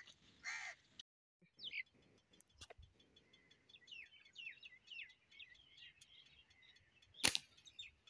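Birds calling faintly in quick, short falling chirps. Near the end comes a single sharp snap, the slingshot being shot at them.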